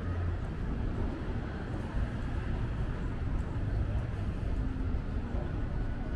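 Busy city street ambience: a steady low rumble of traffic and crowd noise.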